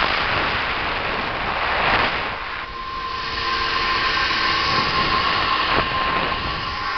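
Zipline trolley's pulley wheels running along the steel cable, a steady metallic whine, with air rushing past the microphone as the rider travels.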